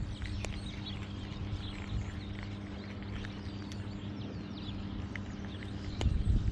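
Cats crunching dry kibble close up, a run of small crisp clicks over a steady low hum, with louder low thumps near the end.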